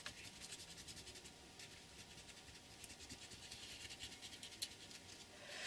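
Eraser rubbing out pencil lines on paper: a faint quick scratching that grows louder near the end.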